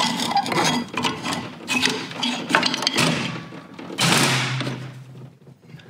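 Metal clicking and scraping as a screwdriver levers a stuck brake pad out of a 1967 Jaguar E-Type's inboard rear brake caliper, with a longer scrape about four seconds in.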